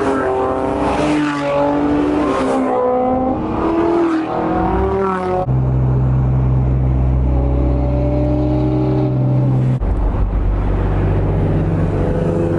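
Car engine and exhaust accelerating hard, the pitch rising and stepping through several gear changes. About five seconds in it changes abruptly to a steady, loud low drone of an engine held at speed, with another sudden change near the end.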